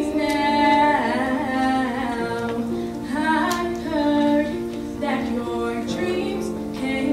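Teenage girl singing a solo pop ballad into a handheld microphone, her amplified voice carried over steady, held instrumental accompaniment notes.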